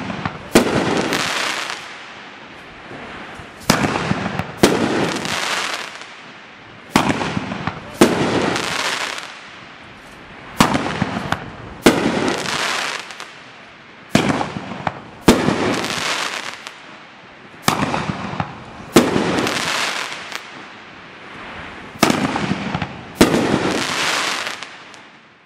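Dominator DM502 'Living Dead' consumer fireworks cake firing its shots one at a time, about every three and a half seconds: each shot is a sharp launch report followed about a second later by the burst's bang and a crackle that fades over a couple of seconds.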